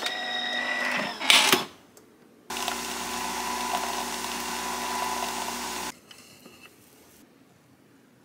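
Nespresso Vertuo coffee machine: a sharp clack as its lid is shut just after a second in, then a steady whirring hum of the machine spinning the capsule and brewing for about three and a half seconds, which cuts off suddenly.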